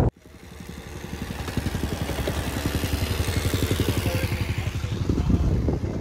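A motor vehicle or machine engine running with a rapid, even beat, growing louder over the first couple of seconds, holding steady, then starting to fade near the end.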